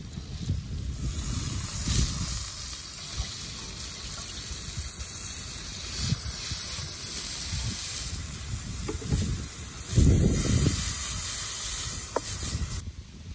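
Wet boiled noodles sizzling steadily in a hot wok, starting about a second in as they go into the pan and stopping abruptly near the end. Knocks and scrapes from a wooden spatula stirring and tossing the noodles, heaviest about ten seconds in.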